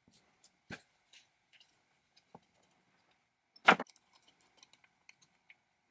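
Light metallic clicks and ticks from handling the ignition breaker points of a 1964 Homelite XL-100 saw's magneto with fingers and a thin metal tool, with one sharp, louder click a little over three and a half seconds in.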